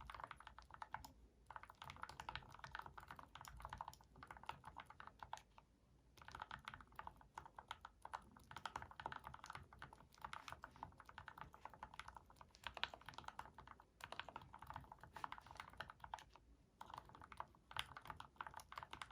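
Mechanical keyboard with H1 switches in a full-aluminium case, typed on in quick runs of keystrokes with short pauses between them. The switches are lubed with Krytox 106 and the springs with Krytox 105.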